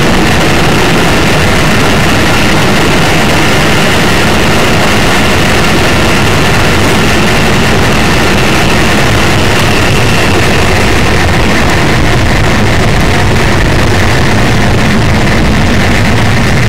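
Loud, steady, heavily distorted roar from a ballistic missile launch, with no break or change in level.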